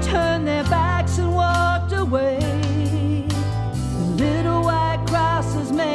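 Recorded band music with a bending, wavering lead melody over steady bass notes that change every second or two.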